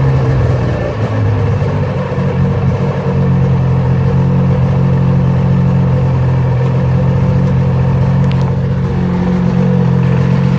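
Polaris Indy 600 snowmobile's two-stroke engine running at a steady speed through its stock exhaust can.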